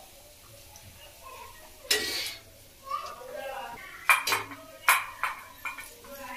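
Metal kitchen utensils clinking against steel pots and plates: a short scraping rush about two seconds in, then a series of sharp clinks in the second half.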